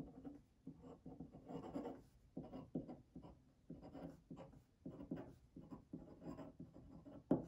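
Pen writing on paper: a faint run of short, irregular scratching strokes, with a sharper tap near the end.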